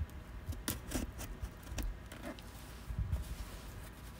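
Handling noise: a scattered run of light clicks and taps, with a couple of soft low thumps about three seconds in.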